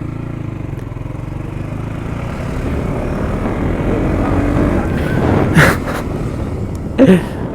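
KTM Duke 250's single-cylinder engine running through an exhaust with the dB killer removed, a low rumble that grows gradually louder over the first few seconds, with two brief louder bursts near the end.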